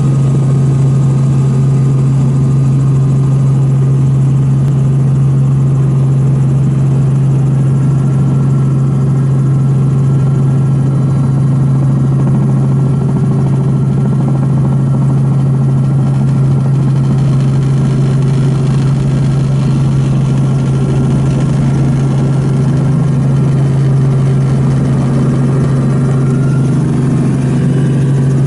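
Snowmobile engine running at a constant, unchanging pitch while riding across the snow.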